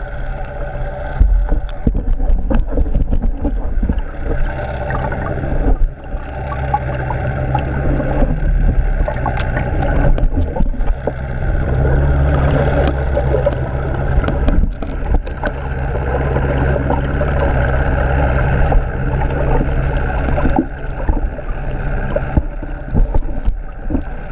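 Steady underwater rumble and low hum, with a wash of gurgling water noise and a few faint clicks, as picked up by a submerged camera.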